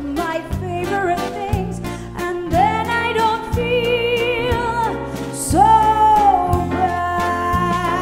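A woman singing long, held notes with vibrato over a small live band, with bass guitar notes changing underneath and cymbals ringing.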